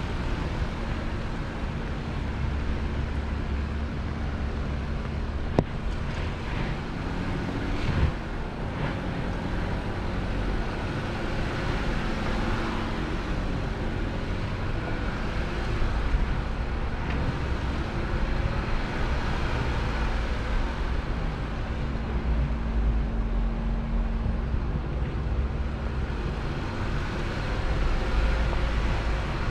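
Off-road 4x4 vehicle driving slowly over a rough trail: a steady engine and drivetrain hum over a low rumble, with two sharp knocks about five and eight seconds in.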